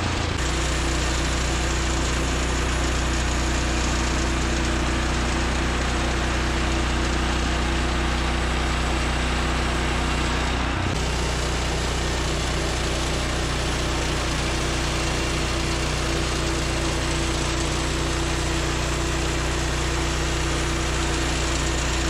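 Woodland Mills HM126 portable bandsaw mill's 14 hp gas engine running steadily as the band blade cuts through a cedar log.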